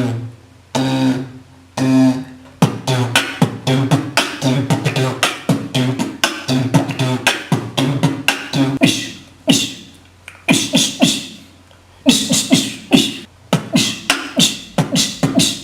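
Beatboxing: a man making rapid percussive mouth sounds, clicks, kick-like thumps and hissing snares, with a couple of short pitched vocal tones in the first few seconds. There is a short break about ten seconds in before the rapid sounds start again.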